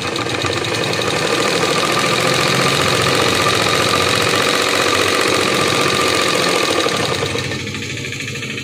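Electric sewing machine running at speed, its needle and shuttle chattering rapidly as it stitches a seam through cloth, then easing off near the end.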